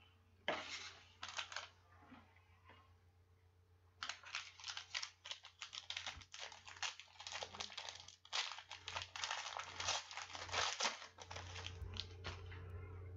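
Foil wrapper of a 2016 Panini Prizm football card pack being torn open and crinkled. There is a short rustle about half a second in, then dense crackling from about four seconds in that stops shortly before the end.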